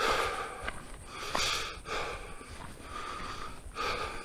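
A walking hiker breathing close to the microphone: several breaths spaced a second or two apart, with a few faint ticks in between.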